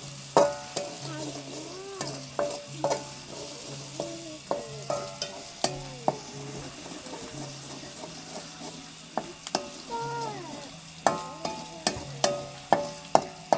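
Freshwater snails and water spinach frying in a wok, stirred with a metal spatula that clinks and scrapes against the pan again and again over the sizzle.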